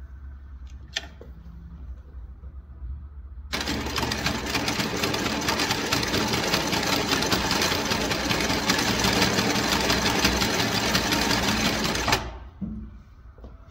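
Juita JT20U-63Z zigzag sewing machine starting up about three and a half seconds in and running a zigzag seam at a fast, even stitching rate for about eight seconds, then stopping suddenly. A low hum sits underneath throughout, with a single click about a second in.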